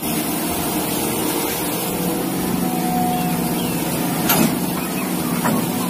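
An excavator's diesel engine running steadily while its bucket dumps sand into a truck bed, with a rush of falling sand about four seconds in.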